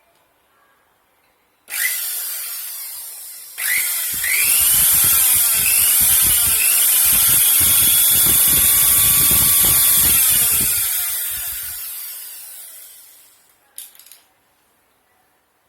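Electric blender motor switched on, whining at high speed, then stepping up to a louder run with a heavy rattling rumble for about eight seconds. It then winds down and stops, followed by a brief short burst.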